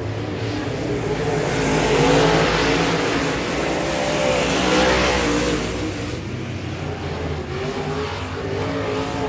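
Dirt-track modified race cars' V8 engines running at racing speed on the oval. The sound swells as cars pass, loudest about two and five seconds in.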